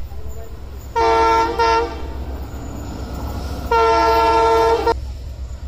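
Approaching passenger train's locomotive sounding its multi-tone horn twice: a blast of about a second starting about a second in, briefly broken near its end, then a slightly longer blast later on. A steady low rumble of the oncoming train runs beneath.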